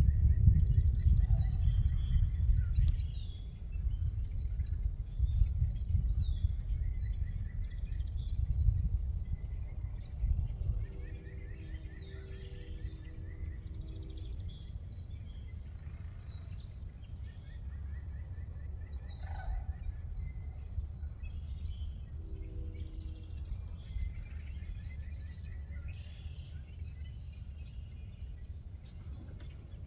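Outdoor ambience: a low, gusty rumble that eases after about ten seconds, with a bird's short trill repeating every few seconds. A wild turkey gobbles three times, about ten seconds apart.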